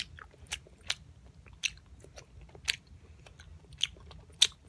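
A person chewing a piece of Hubba Bubba bubble gum close to the microphone: a run of sharp, wet mouth smacks at an uneven pace, about one every half second to a second, the loudest near the end.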